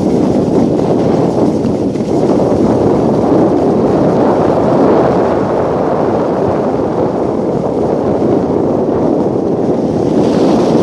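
Steady loud rush of wind on the microphone mixed with the hiss of sliding over packed snow, while descending a groomed ski run.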